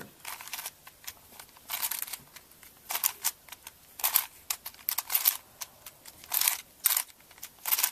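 Plastic layers of a Crazy 3x3x3 Plus Venus puzzle cube being turned by hand through a sune sequence: a run of about a dozen short scraping clicks in quick succession.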